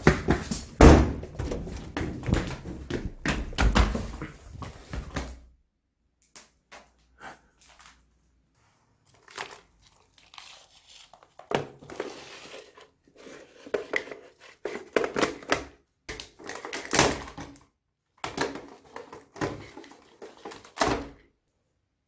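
Thunks and handling knocks from a door and its round knob, then scattered sharp clicks as the buttons of an old corded desk telephone are pressed and the phone is handled.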